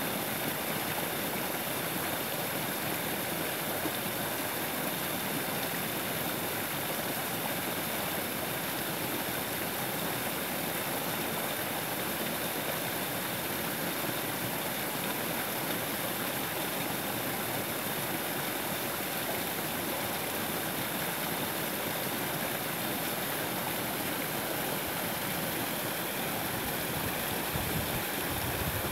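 Small woodland waterfall: creek water pouring over a jam of sticks and logs with a steady, even rushing splash.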